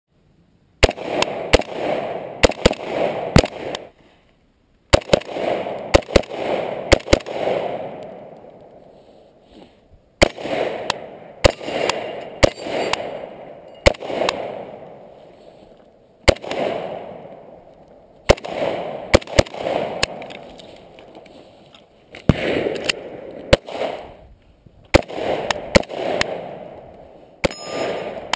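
Arsenal SGL 31-94 AK-74-pattern rifle in 5.45x39 firing loud shots in quick strings of several rounds, with pauses of a second or two between strings. Each string trails off in a reverberating echo.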